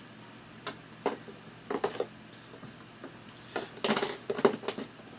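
Cardboard board-game terrain pieces being handled and pulled apart: a few light knocks and rubs, then a louder cluster of clicks and scrapes about four seconds in.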